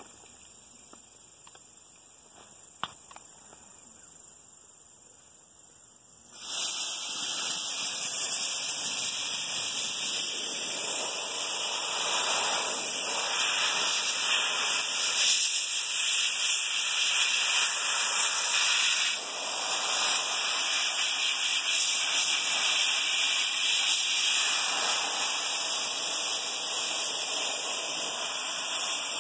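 Soda blaster spraying baking soda with compressed air from its handheld nozzle: a loud, steady hiss that starts suddenly about six seconds in and keeps going, swelling a little at times. It is blasting dried paint-stripper residue off a wooden table leg.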